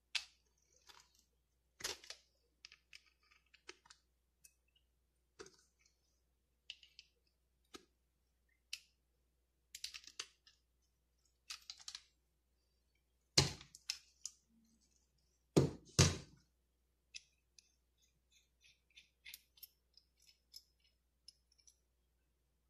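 Scattered small metal clicks and knocks from a chrome shower diverter being unscrewed with an adjustable wrench and taken apart by hand, with a few louder knocks a little past the middle.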